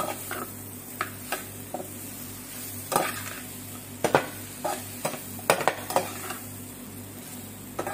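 Chicken pieces with peppers and onion sizzling in a metal frying pan while a slotted spatula stirs and turns them, scraping and knocking against the pan about a dozen times at uneven intervals. A steady low hum runs underneath.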